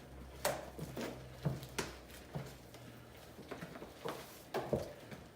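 Fluffy slime being kneaded and squished by hand, giving irregular wet pops and clicks, the loudest about half a second in, around a second and a half in, and near the end.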